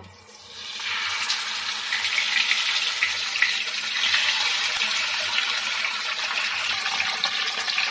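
Pieces of foli fish (featherback) sizzling as they are laid one by one into hot oil in a wok. The sizzle swells over the first second, then holds as a steady, loud hiss.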